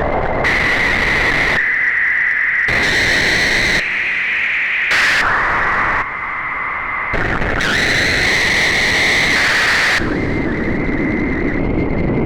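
Elektron Analog Four MK2 synthesizer playing a noise-based patch: hissing noise that switches abruptly in character every second or so, over a steady high tone.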